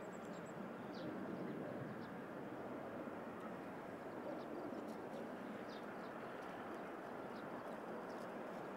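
Steady, low outdoor background noise with small birds giving brief, high chirps now and then.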